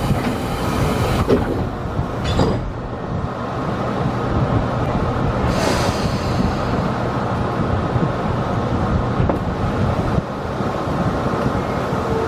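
Tobu Skytree Line local electric train standing at a station, heard from the driver's cab: a steady low hum and rumble from its equipment, with a few short hisses.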